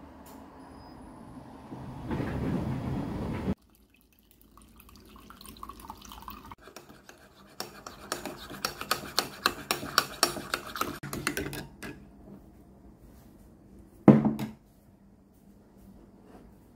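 A metal spoon stirring a drink in a ceramic mug, clinking against the side about four times a second for several seconds. Before it, water pours in, rising in pitch as the cup fills. Near the end comes a single loud knock.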